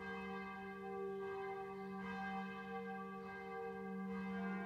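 Deep bell tones ringing on and on, several tones at once, with a slow pulsing beat in the ring.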